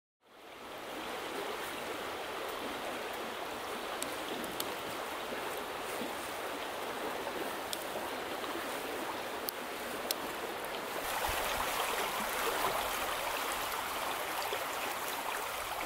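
Shallow limestone stream water running steadily over riffles, fading in at the start and growing a little louder and fuller about eleven seconds in.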